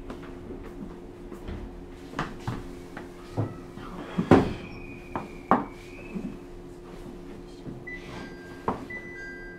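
Inside a stopped JR East E127 series electric train car: a steady hum, with scattered knocks and clunks, the loudest about four seconds in. Near the end a two-tone electronic chime starts, alternating between a higher and a lower note.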